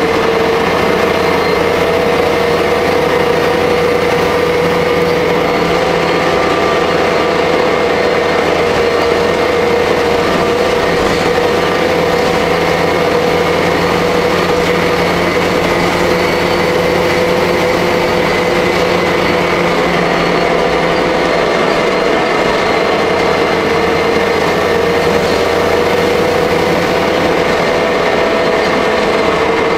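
Jelcz L100 city bus engine and drivetrain running, heard inside the passenger cabin: a steady drone with a high tone held over it. Part of the low hum thins about two-thirds of the way through.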